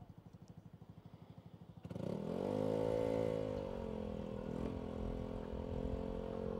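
Motorcycle engine idling with an even pulsing beat, then about two seconds in it revs up and pulls away, its note climbing and then easing into a steady run.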